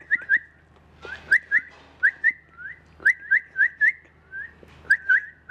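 Young cockatiels chirping: a quick run of short, clear whistled notes that each hook upward, about three or four a second.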